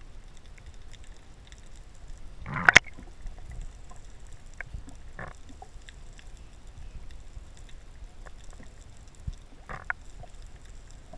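Underwater sound picked up through a camera's waterproof housing: a steady low water rumble broken by a few short bursts of noise, the loudest about two and a half seconds in, with smaller ones around five and ten seconds.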